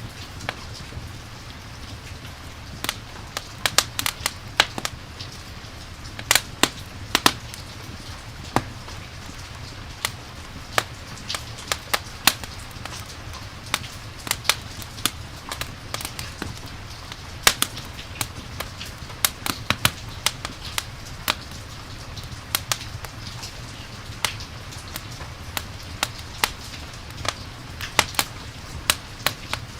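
Campfire crackling, with sharp, irregular pops and snaps over a steady hiss of rain.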